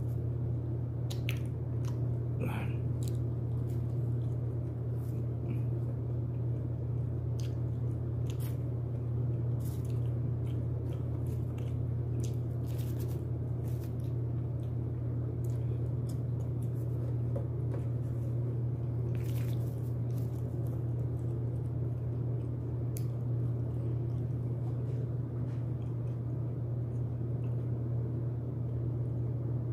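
Chewing and biting into crispy broasted chicken, with scattered short crunchy clicks, over a steady low hum.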